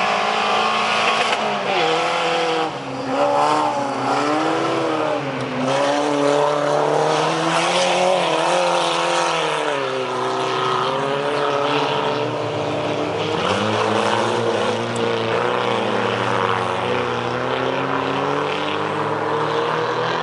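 Engines of several dirt-track race cars revving hard, their pitch repeatedly rising and dropping as they accelerate and shift through the gears, with more than one engine heard at once.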